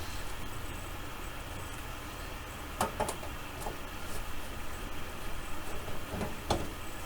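A few light clicks and knocks, about four in all, from hand disassembly of a Hallicrafters S40 radio's metal cabinet and chassis. A steady low hum lies underneath.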